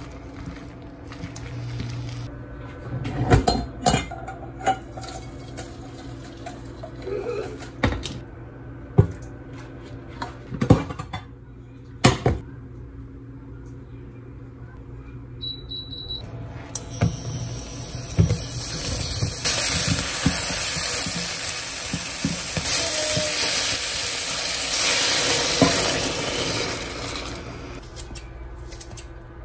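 Kitchen work: pots, dishes and utensils knocking and clinking. A little past halfway a steady hiss builds, holds for about ten seconds and fades near the end.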